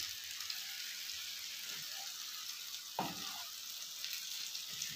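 Beaten egg frying on a flat iron griddle (tawa) over a gas burner: a steady sizzle. A spatula scrapes briefly against the pan about three seconds in.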